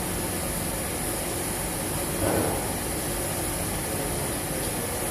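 Steady machine drone with a constant high-pitched hiss, and a brief louder sound about two seconds in.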